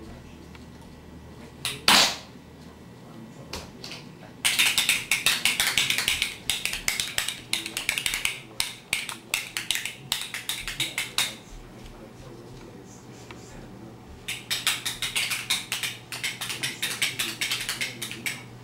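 A sharp knock about two seconds in, then a small hand-held toy rattled in two long spells of quick, dense clacking, the second starting about two-thirds of the way in.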